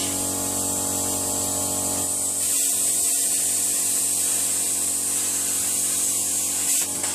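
Stahlwerk CT 520 P plasma cutter cutting thin 1.2 mm steel plate: a steady hiss of air through the torch, which grows brighter about two and a half seconds in and cuts off suddenly near the end. An air compressor hums steadily underneath.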